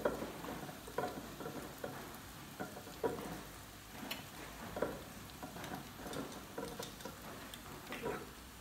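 Salad being tossed in a glass bowl with salad servers: irregular soft rustles of lettuce and light knocks, a little over one a second.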